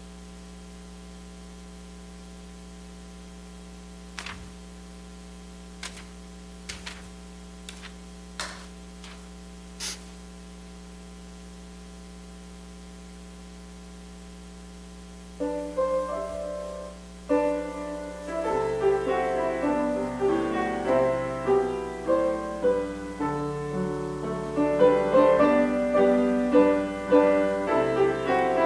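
Steady electrical hum with a few short knocks, then a piano starts about halfway through, playing the introduction to the closing hymn and growing louder.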